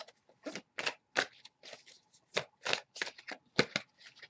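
Deck of tarot cards being shuffled by hand: a run of short, irregular papery rustles and snaps, about three a second.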